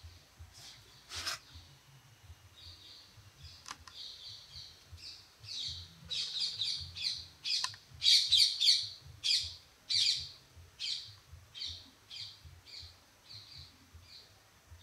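A bird chirping a long series of quick, repeated high notes that grow to their loudest about halfway through and then fade. A sharp click comes about a second in, and another near four seconds.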